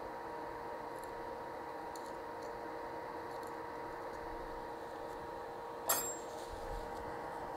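Steady hum of electronics-repair bench equipment with a constant faint tone, a few light ticks, and one sharp metallic clink about six seconds in, from a small hand tool on the workbench.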